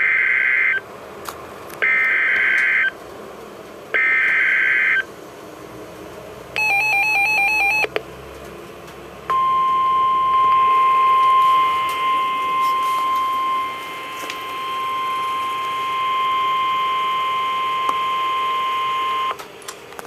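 NOAA Weather Radio alert signal on a Public Alert weather radio: three one-second bursts of screechy digital SAME header data about two seconds apart, a short burst of beeping, then the steady 1050 Hz warning alarm tone held for about ten seconds, announcing a special marine warning.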